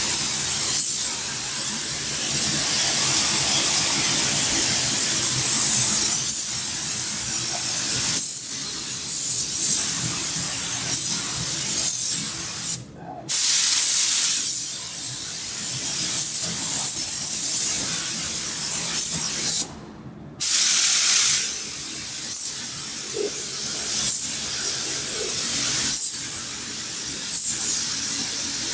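Gravity-feed paint spray gun hissing steadily as compressed air atomises paint onto a truck's body panels, cutting off briefly twice near the middle where the trigger is let go.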